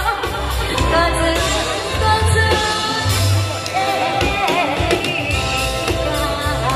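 A female singer singing live over a loud backing track with a strong bass line. Her held notes waver with vibrato.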